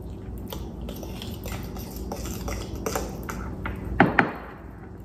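Metal fork stirring a thick egg-and-cornbread-dressing mixture in a ceramic bowl: rapid small clinks and scrapes against the bowl, with two sharper clinks about four seconds in.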